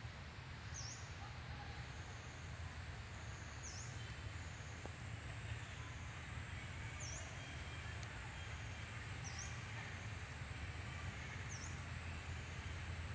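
Outdoor ambience: a steady low rumble with a short, high chirp about five times, every few seconds.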